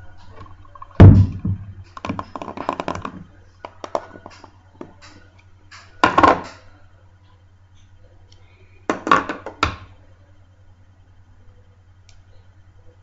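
Clear plastic capsule holding a heavy one-kilo silver coin being handled against a table: a loud thunk about a second in, a spell of small clicks and rattles, then further knocks around six and nine seconds.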